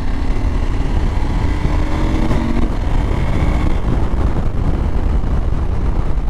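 Husqvarna Norden 901's parallel-twin engine under way, its note rising as the bike accelerates out of a corner for the first few seconds, then easing off, with steady wind rush over the microphone.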